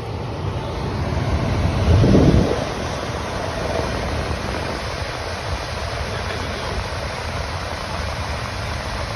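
Steady rushing noise of running central air-conditioning equipment, with a brief louder low rumble about two seconds in.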